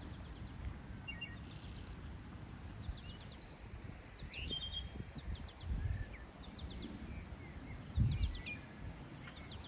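Small birds chirping in short, scattered calls over a low outdoor rumble, with a soft low thump about eight seconds in.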